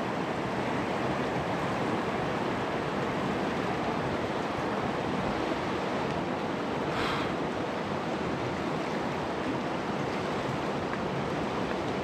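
Shallow mountain river rushing steadily over a stony riffle.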